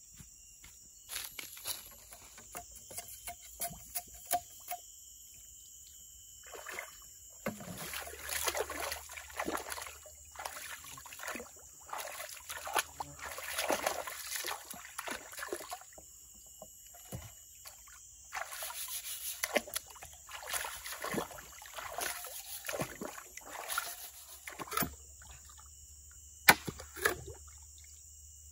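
Hands splashing and sloshing water in a shallow stream, in two long runs of irregular splashes with a short pause between them. A couple of sharp knocks come near the end, and the first few seconds hold only a few light clicks over a steady high insect hum.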